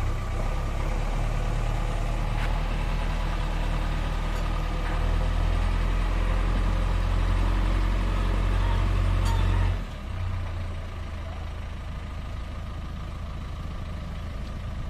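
Heavy diesel engine working hard with a steady low drone that grows a little louder, then drops off suddenly about ten seconds in and runs on more quietly.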